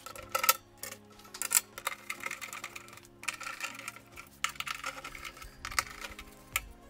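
Irregular clicks and light metallic clatter as the sheet-metal cover and brackets of a solar inverter are handled and screwed on.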